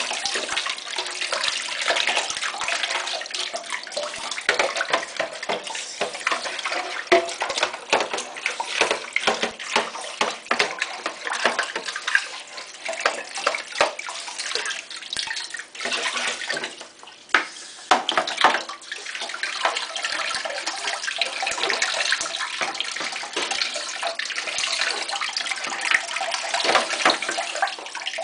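Tap water running and splashing onto a plastic washing-machine detergent drawer held under it, with irregular small clatters and splashes as the soap scum is rubbed off by hand. The flow briefly eases a little past the middle.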